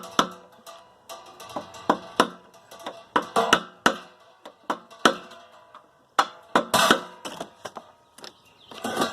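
Irregular sharp metallic clicks and clacks of a hand cutting tool working at the crimp rings on an RV water heater's pipe fittings.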